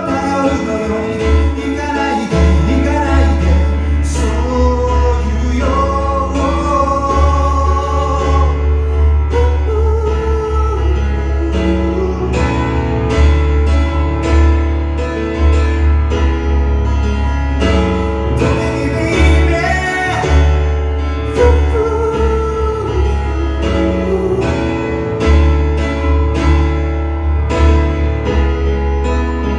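A man singing in stretches over chords played on a Roland RD-700 digital stage piano, a solo live vocal-and-keyboard performance.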